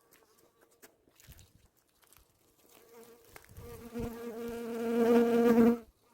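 A flying insect buzzing close to the microphone, growing steadily louder over a few seconds and then stopping abruptly.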